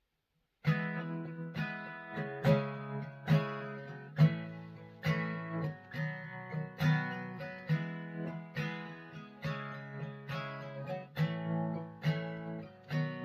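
Acoustic guitar playing the intro of a folk song, strummed chords coming in about a second in and following one another in a steady rhythm, roughly one stroke a second, with the notes ringing on between them.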